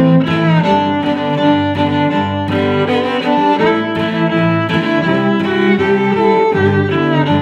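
Background music played on bowed strings, violin and cello, in sustained notes that change pitch every second or so.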